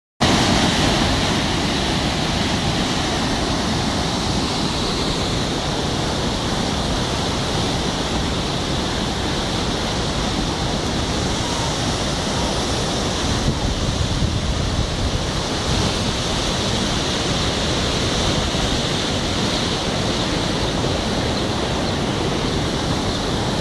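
Swollen, muddy floodwater rushing past in a steady torrent, a flash flood from a cloudburst.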